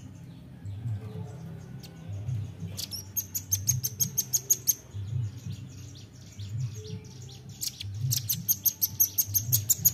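Nuthatch calling in rapid runs of sharp, high chip notes, about seven a second: one run about three seconds in, a louder one near the end.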